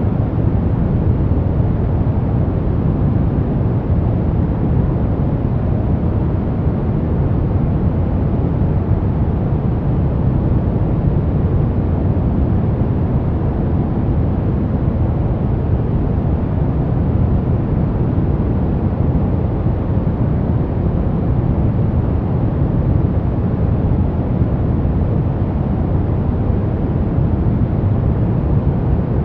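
Continuous synthetic noise from a white-noise relaxation track, steady and unchanging. Most of its weight sits low, so it sounds like a deep, even rush rather than a bright hiss.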